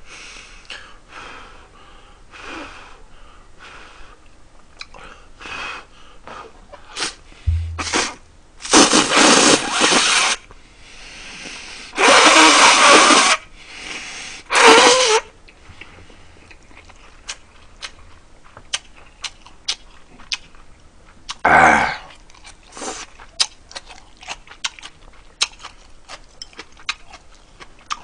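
Loud slurping of instant ramyeon noodles, several long slurps in a row and one more some seconds later. Between them come chewing and small clicks of chopsticks against the bowl.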